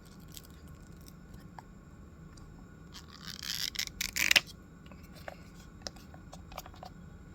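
Stationery packaging being handled: scattered light clicks and taps, and about three seconds in a second-long burst of rustling, ripping packaging that ends in a sharp crackle.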